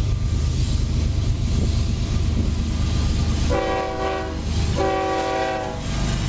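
Diesel freight locomotive Ferrosur 4703 passing with its engines running in a steady low rumble, sounding its multi-tone horn in two blasts of about a second each, a little after halfway through.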